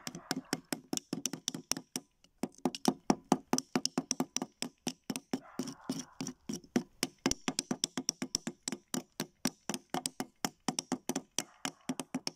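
Two small excavation hammers tapping chisels into a plaster fossil block: a fast, uneven run of sharp taps, about six a second, with a brief pause about two seconds in.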